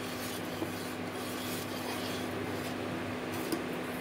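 A steel ladle stirring grated bottle gourd through hot milk, rubbing and scraping against the inside of a stainless-steel saucepan, with a steady low hum underneath.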